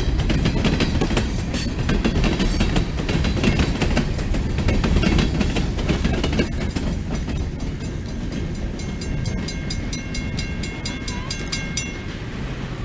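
Covered hopper cars of a freight train rolling past, with wheel clatter and clicks over the rail joints that die away as the last car passes about six seconds in. Then a grade-crossing bell rings rapidly for a few seconds and stops near the end.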